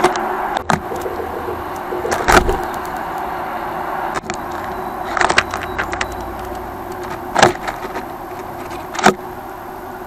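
A great tit feeding inside a seed feeder right at the microphone: sharp knocks and seed rattles of its beak and feet every second or two, about six in all, over a steady background hum.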